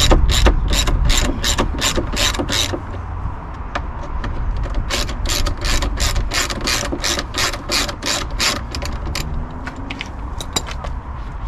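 Hand ratchet clicking in quick, even strokes, about three a second, as it backs out the triple-square spline bolts that hold the door lock. The clicking stops for about two seconds a little under three seconds in, then resumes and fades near the end.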